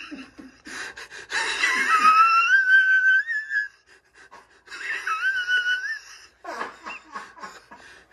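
High-pitched wheezing laughter: two long squealing breaths, the first about two seconds long and the second shorter, then short gasping breaths near the end.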